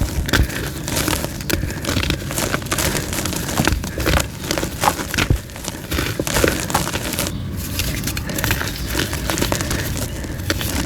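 Blocks of soft white gym chalk being crushed and crumbled by hand, giving a steady run of soft crunches and crackles with many small sharp snaps as the chalk breaks into powder.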